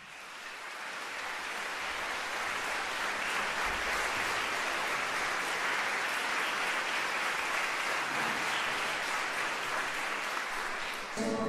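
Audience applause, a dense patter of many hands clapping, fading in over the first couple of seconds and then holding steady.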